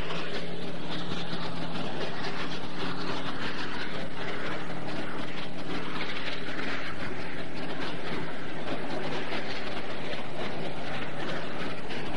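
A tank's engine running nearby: a loud, steady noise with a low drone under it.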